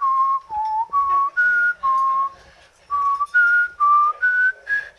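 A man whistling a tune: a run of short, clear notes stepping up and down in pitch, with a brief pause about halfway through.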